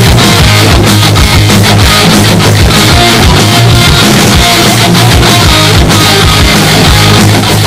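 Loud, heavily compressed rock music with distorted electric guitar and a steady driving drum beat.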